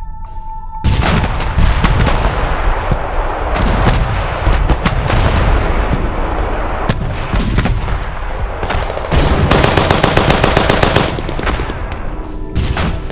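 Battle sound effects: gunfire with heavy low booms breaks in suddenly about a second in, cutting off sustained music. A rapid burst of machine-gun fire comes near the end.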